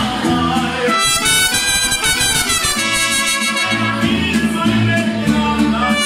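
Live mariachi band playing: guitarrón bass notes and strummed guitars under a bright lead melody.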